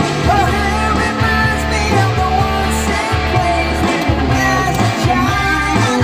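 Rock music with an electric guitar playing lead lines with bent notes over a steady bass backing.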